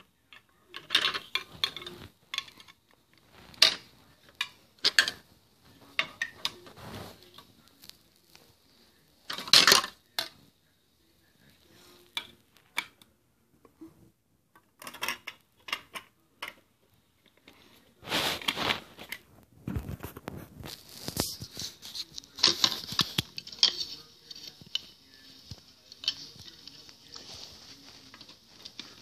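Marbles clicking and clattering along a plastic marble run track, in irregular bursts of sharp clicks. About two-thirds of the way in, the clicks turn into a dense, continuous rolling rattle.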